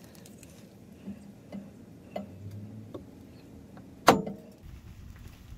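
Hand rivet nut tool being fitted to a car's frame: a few faint metallic ticks, then one sharp metal click about four seconds in as the rivet nut on the tool's tip goes into the hole in the frame.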